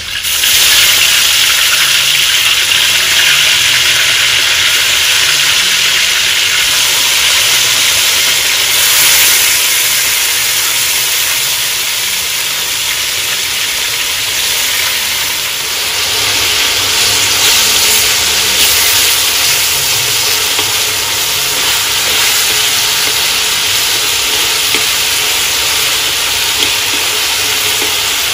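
Marinated pork pieces frying in a hot wok: a loud, steady sizzle that starts suddenly as the meat hits the hot oil.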